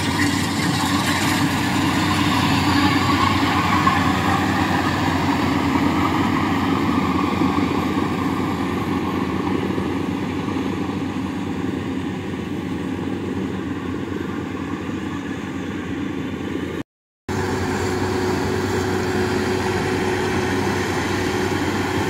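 Tracked rice combine harvester running steadily while it cuts rice: engine and threshing machinery. The sound drops out for a split second about three-quarters of the way through, then carries on the same.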